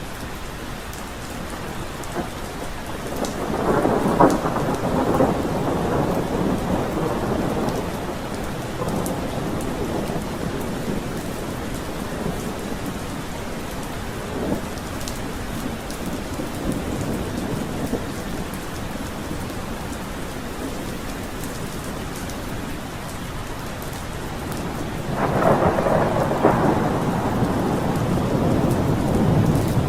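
Thunderstorm: steady heavy rain with rolling thunder, one long rumble swelling a few seconds in and fading, and a second loud peal near the end.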